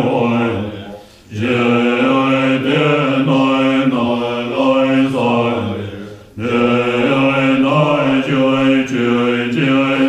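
Tibetan Buddhist monks chanting together in deep, low voices, long held phrases broken by brief breath pauses about a second in and again about six seconds in.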